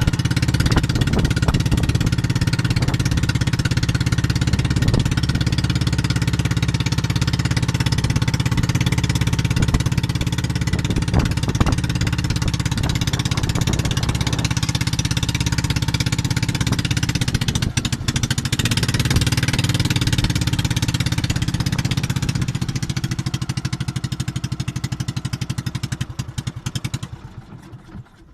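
A small engine running steadily at an even speed, fading out near the end.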